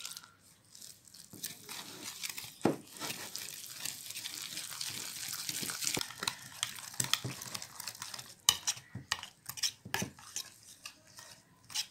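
Water is poured onto gram flour with a steady hiss. From about halfway, a wire whisk stirs the thick batter in a glass bowl with quick, irregular clicks and scrapes against the glass.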